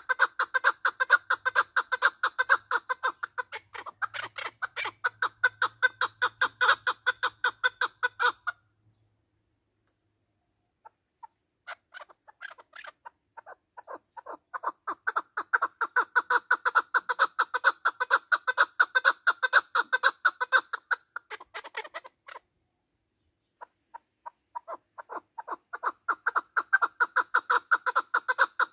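Male chukar partridge giving its rallying call: long runs of rapid, repeated chuk notes. The calling stops about a third of the way in, builds up again a few seconds later, breaks off briefly past the middle, then starts again.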